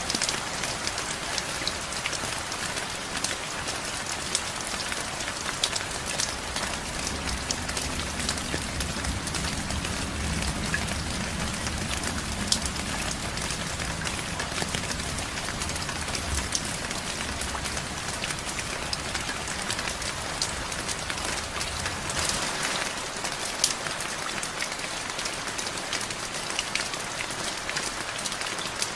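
Steady rain falling on a surface, with frequent sharp hits of single drops over an even hiss. A low rumble runs beneath the rain through the middle and stops about two-thirds of the way through.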